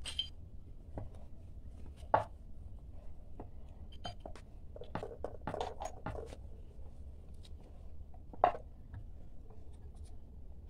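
Wooden rolling pin rolling out flour dough on a round wooden board: a soft rubbing with scattered wooden clicks and knocks, two of them louder, about two seconds in and late on.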